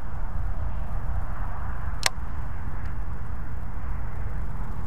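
Wind buffeting the microphone, a steady low rumble, with a single sharp click about two seconds in.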